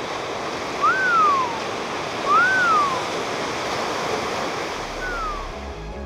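Ocean surf washing steadily. Three times a bird gives a cry that rises quickly and then slides down. A low musical note enters near the end.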